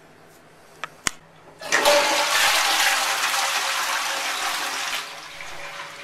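A toilet flushing: two short clicks about a second in, then a rush of water that swells quickly and slowly dies away.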